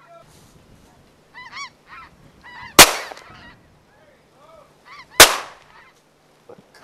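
Canada geese honking overhead, cut by two shotgun shots about two and a half seconds apart, far louder than the calls.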